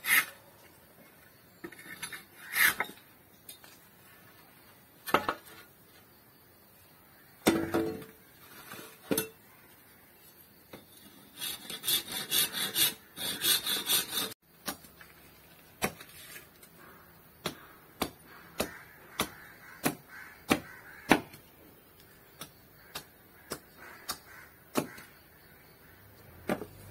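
Blade shaving and scraping a wooden hoe handle in short strokes, densest just past the middle. Then a steady run of light, sharp knocks, about one or two a second, as a small hammer taps while the hoe head is fitted to its handle.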